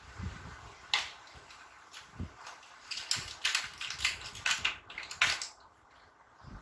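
Crayons being handled and picked through: a single knock about a second in, then a quick run of clicks and rattles lasting about two seconds.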